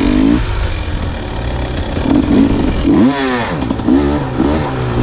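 Dirt bike engine revving up and down as it is ridden, the pitch rising and falling several times, with a deep drop and climb back about three seconds in.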